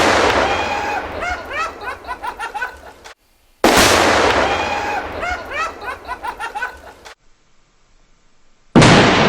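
Tannerite exploding target going off with a sudden loud boom and a long rolling echo. The same blast sounds again about three and a half seconds in, then after a short quiet gap another blast goes off near the end.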